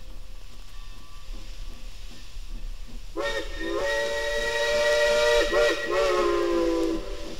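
Steam whistle of a 2-8-0 steam locomotive, sounding several notes at once. About three seconds in it gives a short toot, then two long blasts with a brief break between them; the last blast sags in pitch as it dies away. Before the whistle there is a steady hiss.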